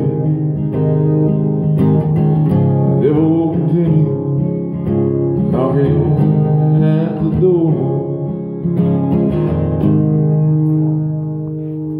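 Guitar strumming chords under a wordless sung vocal line, the close of a song; near the end the last chord is left ringing and fades.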